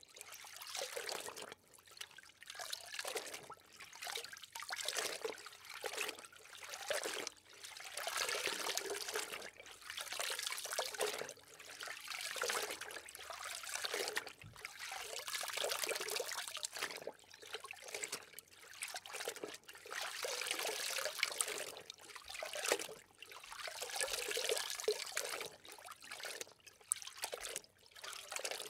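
Water bubbling and trickling in uneven swells that rise and fall every second or two, like an underwater ambience.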